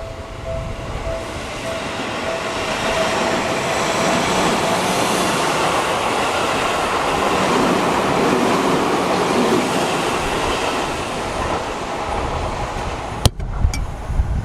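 Seibu Shinjuku Line electric commuter train passing over a level crossing, its wheel and running noise swelling to a peak about halfway through and then easing off. A crossing warning bell rings in a steady pulse at first and fades out. Near the end there is a sharp click.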